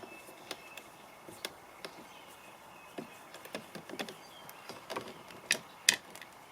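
Scattered small clicks and taps of a T20 Torx screwdriver backing a screw out of the plastic inside-door-handle recess, irregularly spaced, with two sharper clicks near the end, the second the loudest.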